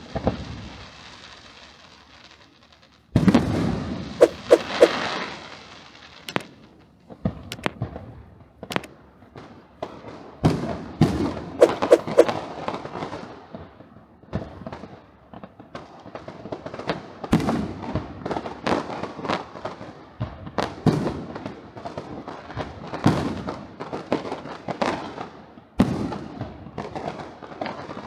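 Aerial fireworks bursting: a loud, irregular series of bangs and dense crackling salvos, each trailing off in reverberation, with a short lull about two seconds in before a loud salvo.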